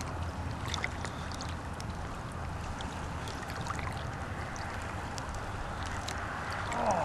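Steady rush of a fast-flowing river over a shallow riffle, with faint scattered ticks.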